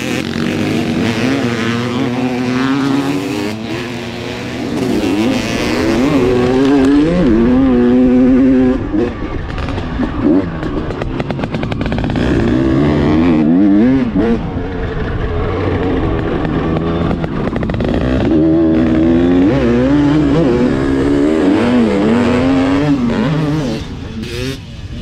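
Honda CR250's single-cylinder two-stroke engine revving hard on a motocross track, its pitch climbing and dropping again and again as the rider opens the throttle and shuts off.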